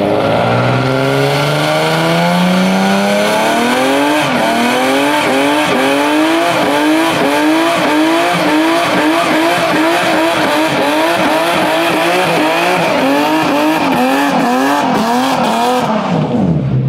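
Infiniti G sedan's V6 engine revving hard during a burnout, with the spinning rear tyre squealing on the asphalt. The revs climb over the first few seconds, then rise and fall rapidly, a couple of times a second, as the throttle is worked, and drop off near the end.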